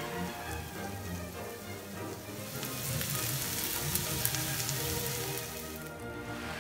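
Sliced onions and fresh curry leaves sizzling in hot oil in a frying pan, with scattered crackling spits. The sizzle swells about two and a half seconds in and drops away near the end. Background music plays under it.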